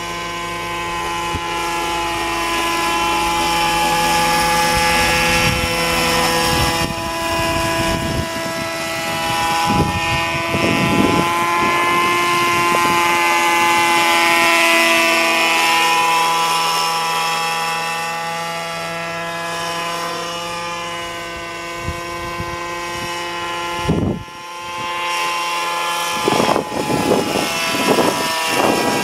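Radio-controlled Radikal G30 helicopter with a Zenoah G230 two-stroke petrol engine in flight: a steady engine buzz and rotor hum. It grows louder as the helicopter passes close about halfway, its pitch drifting slightly, then eases off.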